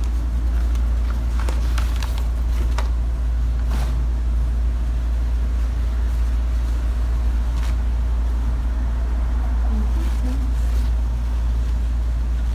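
A steady low rumble, with a few short crinkles and rustles from newspaper and tissue wrapping being handled.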